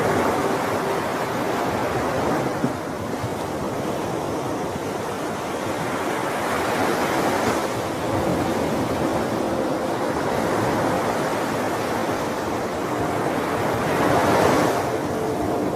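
Ocean waves washing on a shore in a steady rush, swelling twice: about seven seconds in and again near the end.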